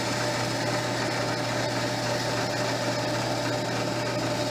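Cheap benchtop drill press motor running steadily, spinning a rubber expansion plug while a hacksaw blade is held against it to trim the rubber down.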